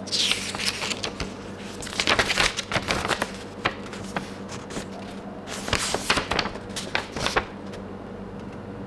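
Handling noises from unboxing: three spells of crinkling, rustling and light clicks, the first about a second in, then around two to three seconds in and again around six to seven seconds in, as the packaging and soundbar are handled.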